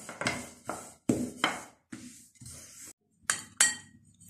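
A thin wooden rolling pin is rolled back and forth over soft dough on a silicone mat, about six rubbing strokes roughly half a second apart. Near the end come two sharp clinks of a metal spoon against a ceramic plate, and the second one rings briefly.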